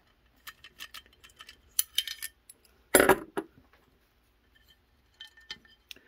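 Small metal parts of a Fichet Monocommande safe lock clicking and clinking as the lock is handled and its gear turned: a run of light clicks, one louder clack about three seconds in, and a few faint clicks near the end.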